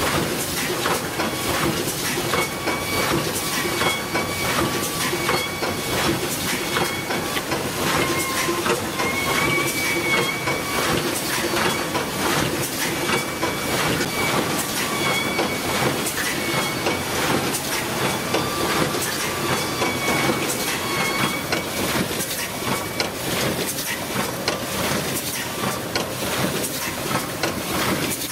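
Fully automatic CNC three-colour screen printing machine running: a steady clatter of rapid clicks and a pneumatic hiss, with short high whines that recur every second or two.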